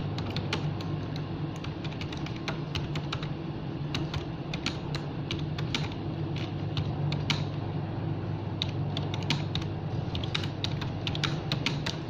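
Typing on a computer keyboard: irregular clusters of keystroke clicks with short pauses, over a steady low hum.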